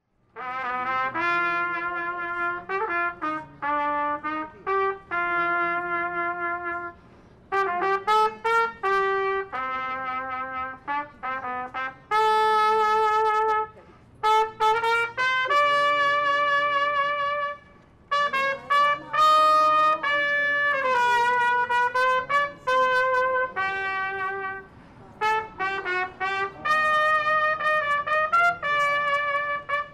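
Music: a single horn playing a melody one note at a time in short phrases, with brief pauses between them. It starts suddenly right at the beginning.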